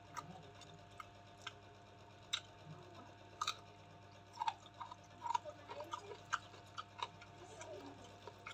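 Close-up eating sounds: a person chewing, with irregular sharp wet clicks and smacks of the mouth.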